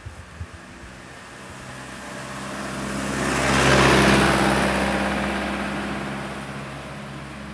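A motor vehicle passing by, swelling to a peak about four seconds in and then fading, over a steady low hum.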